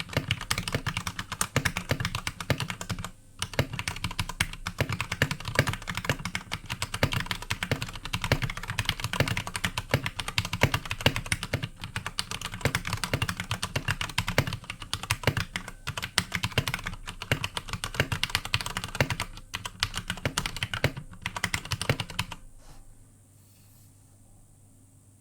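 Fast, continuous typing on an iKBC Poker II mechanical keyboard with Cherry MX Red linear switches: a dense stream of key clacks with a couple of brief pauses. The typing stops about three seconds before the end, leaving only faint hiss.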